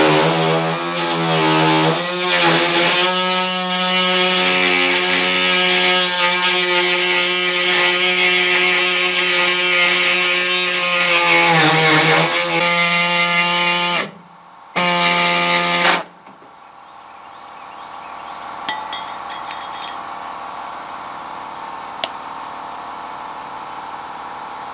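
Pneumatic body saw cutting through the thin sheet-metal side of a pickup bed, a loud steady buzzing whine whose pitch dips now and then as the blade loads up. It stops briefly, runs again for about a second and stops, leaving a quieter steady noise.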